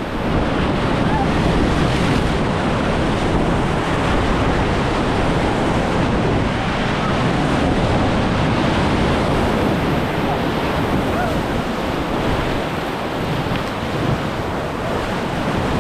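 Class III+ whitewater rapid rushing and crashing around a raft as it runs through the waves, with wind buffeting the microphone.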